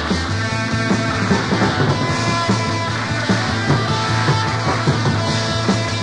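Sixties garage-psychedelic rock recording in a passage without singing: guitar over a steady drum beat.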